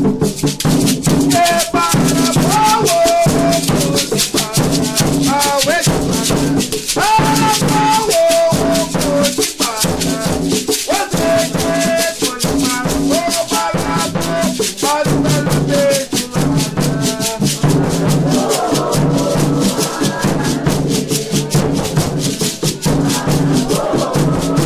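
Batuque ritual song for the orixá Bará: a voice sings melodic phrases over a steady, fast beat of a rope-laced double-headed tambor drum and an agê gourd rattle. From about eighteen seconds in the singing gives way to a fuller, denser texture over the same beat.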